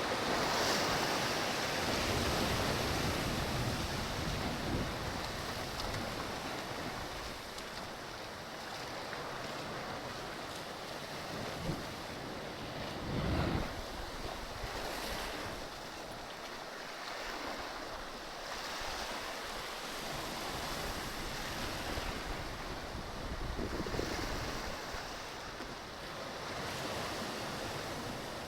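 Sea surf washing against a rocky shore, surging and easing every few seconds, with wind buffeting the microphone.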